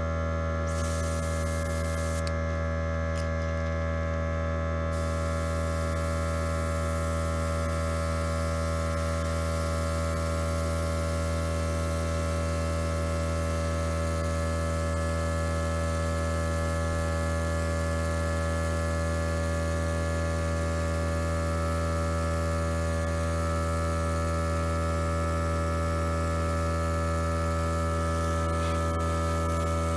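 Airbrush air compressor running with a steady, loud hum, and over it a steady hiss of air from the airbrush spraying paint.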